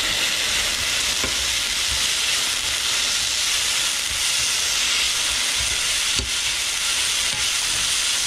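Shredded potatoes and bell pepper strips sizzling steadily in hot oil in a frying pan as they are stir-fried, with a couple of light knocks of the spatula against the pan.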